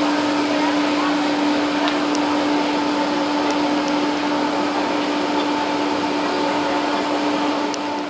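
Steady mechanical whirring drone with a strong constant low hum and a fainter higher hum, like running machinery aboard a ship; it cuts off at the very end.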